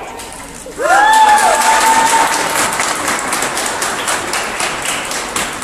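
Crowd applauding and cheering: about a second in, a loud rising whoop sets off dense clapping that goes on and slowly eases off.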